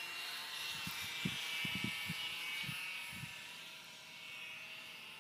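HobbyZone Mini Super Cub RC plane's small electric motor and propeller whining steadily in flight, fading a little after about three seconds, with gusts of wind thumping on the microphone.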